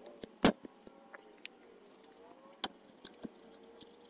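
Steel wool rubbing surface rust off the blades of a dismantled pair of old scissors, with scattered light clicks and taps of the steel, the loudest a sharp knock about half a second in.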